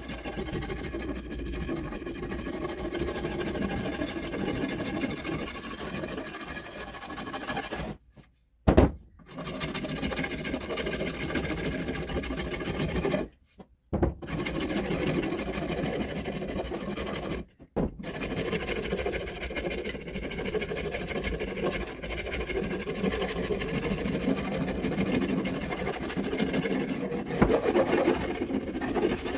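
Hand rasp scraping back and forth along a wooden axe handle, thinning and shaping it, in continuous rasping strokes. The strokes stop briefly three times, with one sharp knock about nine seconds in.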